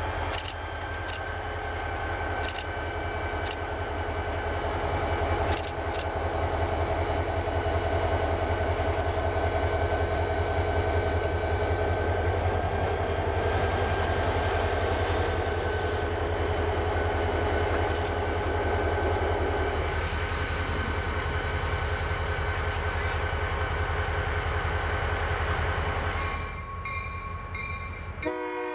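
Diesel locomotives of a passenger train running steadily, with a low engine rumble and a few sharp clicks in the first several seconds. The train horn starts to sound right at the end.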